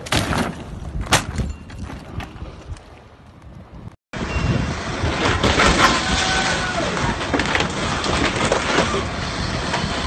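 A couple of hard knocks as an overturned SUV comes to rest. About four seconds in, after a short break, an excavator runs while its hydraulic grab crushes the roof of a white Ferrari sports car, which creaks and cracks.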